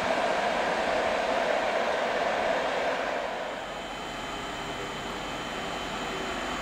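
Steady rushing noise of rail traffic through the station, which drops away about three seconds in. After that a quieter hum with faint steady whine tones remains as an electric-hauled InterCity train approaches in the distance.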